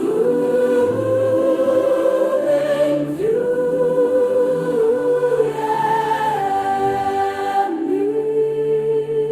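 Wordless choir singing long held notes that move to a new chord every couple of seconds, over sustained low tones.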